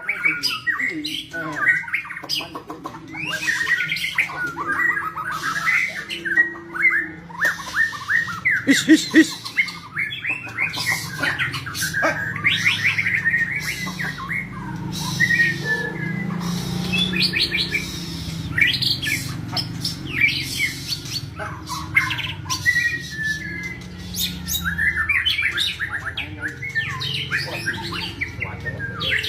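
White-rumped shama (murai batu) singing in rapid chattering and squawking phrases, with a steady low hum underneath.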